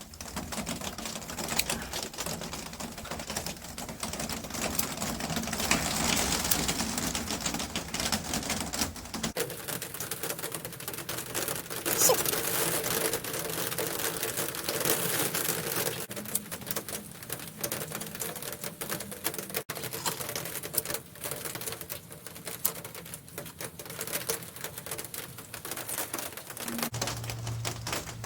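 Rain pattering on a gazebo's cover: a dense, steady run of rapid drop hits. A low hum comes in near the end.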